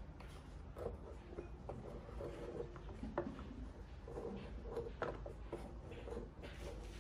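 A wooden model truck being turned and shifted by hand on a wooden tabletop: light rubbing and scraping of wood on wood, with a few short sharp knocks.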